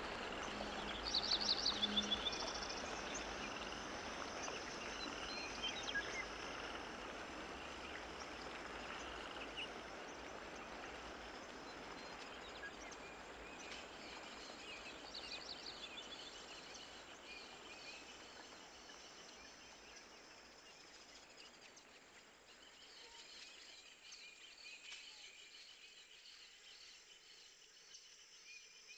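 Quiet ambience with faint high-pitched chirping trills. A louder run of rapid chirps comes about a second in, and the background hiss fades lower toward the end.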